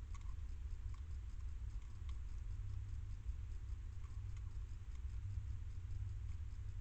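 A hedgehog eating from a metal dish: faint, irregular clicks of it chewing and crunching its food, a second or so apart, over a steady low hum.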